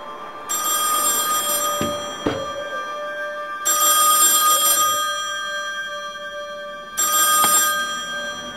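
Payphone ringing in a phone booth: three rings, each about a second long and roughly three seconds apart, fading after each ring. There are a couple of sharp knocks between the first two rings and another during the last.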